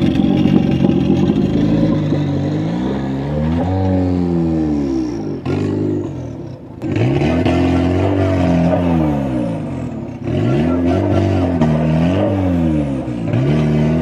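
Off-road 4x4 engine revving up and down again and again under load, with a short break near the middle.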